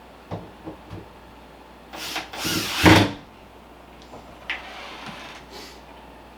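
Metal door-lock hardware being fitted into a door: a few light clicks and knocks, then a scraping rasp about two seconds in that ends in a loud clack, and a softer scrape a little later.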